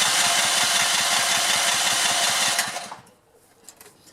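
Electric starter cranking a go-kart's small four-stroke engine with a fast, even chugging, cutting off sharply about three seconds in; the engine does not catch and needs choking.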